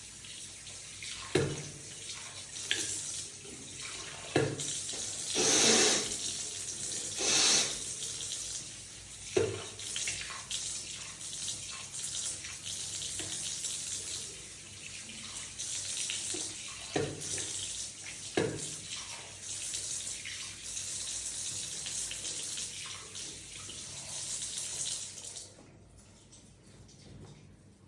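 Water running into a sink in a steady hiss, with a few louder gushes and several short sharp splashes; the water stops near the end.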